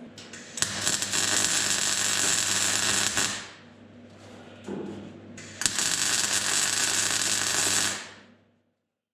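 Welding arc crackling on sheet-metal body panels in two runs of about two and a half seconds each, with a steady low hum from the welder.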